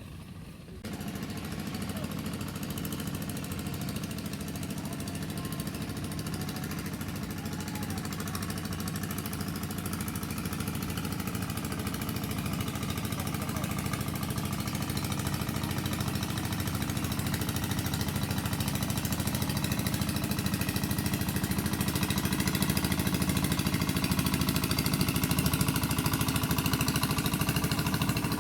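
An engine running steadily with a fast rattle. It starts about a second in and grows gradually louder.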